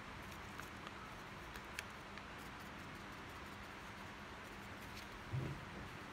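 Faint handling of a folded square of sticky-note paper: a scatter of light paper ticks and crinkles, then a soft thump about five seconds in as the paper is laid down and pressed onto the sheet on the table.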